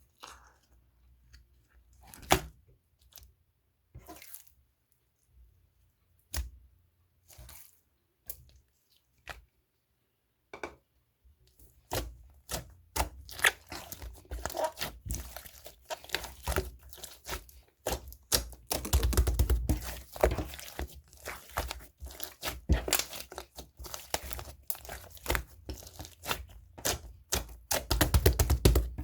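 Green marbled macaron slime being worked by hand: a few scattered sticky clicks and pops at first, then from about twelve seconds in a dense, continuous run of crackling pops and tearing sounds, loudest around twenty seconds and again near the end.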